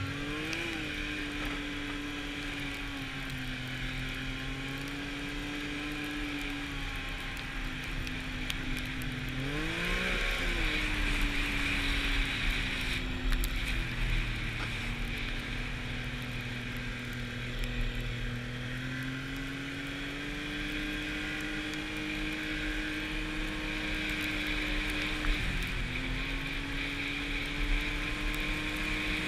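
Arctic Cat snowmobile engine running at trail speed, heard from the rider's seat, with wind rushing over the microphone. The engine revs up sharply about ten seconds in, then settles back to a steady cruise.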